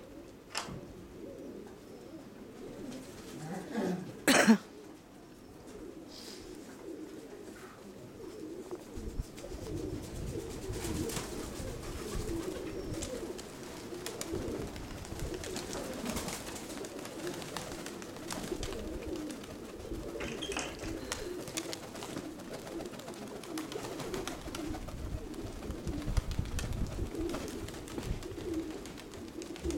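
Domestic pigeons (Nikolaev high-flyers) cooing steadily, many at once. A single sharp loud knock about four seconds in, and wind rumbling on the microphone from about nine seconds in.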